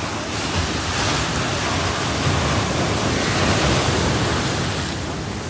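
Sea waves washing in as a steady rush, swelling a little in the middle, with wind rumbling on the microphone.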